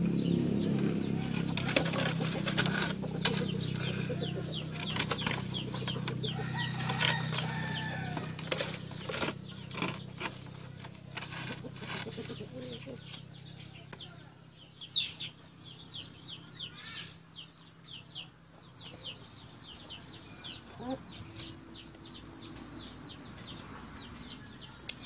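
Chickens clucking and fluttering, with scattered clicks and rustling. A low steady hum fades away about halfway through, and short high chirps come in the second half.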